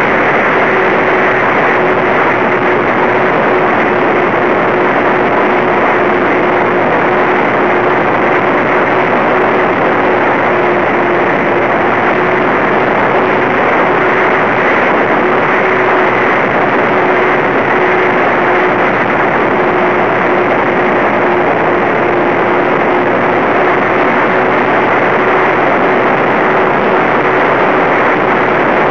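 Twinstar RC plane's two electric motors and propellers running steadily in flight, heard through the onboard camera's microphone under a loud rush of wind noise, with one steady hum held throughout.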